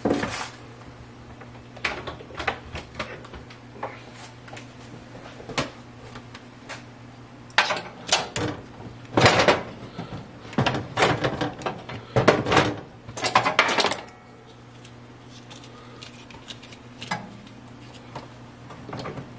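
Knocks and clatter of a slow cooker and its glass lid being handled and set down on a stovetop. A burst of loud knocks comes in the middle, then only a few faint ones.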